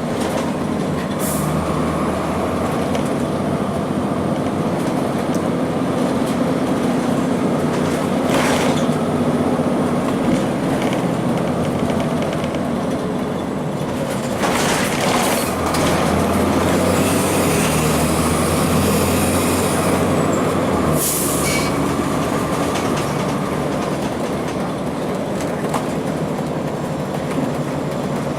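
2002 Blue Bird CS transit bus with its Cummins ISC inline-six diesel running, heard on board with continuous engine and road noise. The rumble grows heavier for a few seconds past the middle, and there are four short hisses of air.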